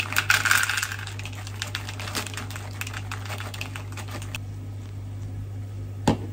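Frozen corn kernels pouring from a plastic bag into a bowl: a rapid patter of small hard clicks with bag crinkling, lasting about four seconds. A steady low hum underneath, and two sharp knocks near the end.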